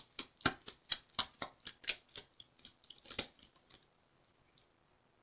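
A tarot deck being shuffled by hand: a quick, even run of sharp card snaps, about four a second, that stops a little before four seconds in.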